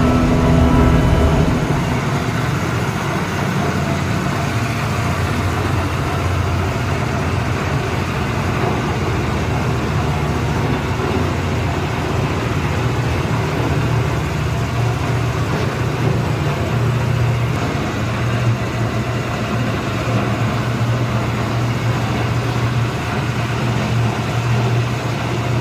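Small petrol engine of a sugarcane juice machine running steadily, a constant low hum.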